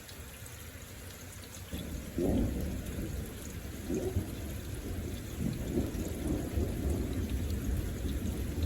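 Thunder rumbling: a deep roll that starts about two seconds in, peaks soon after, then rolls on with several further swells.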